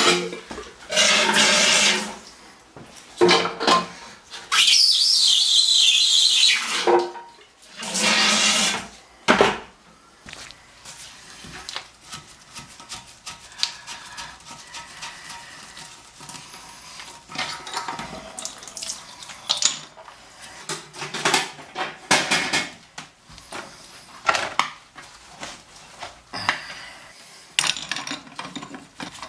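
Hand pump drawing the last water out of a toilet tank in about five loud slurping strokes in the first ten seconds, one longer stroke hissing and gurgling. After that, quieter clicks and taps of a wrench and hands on the tank bolts and the water supply nut.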